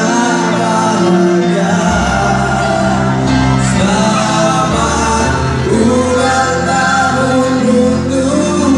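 Choir singing a song with musical accompaniment; a low bass part comes in about two seconds in.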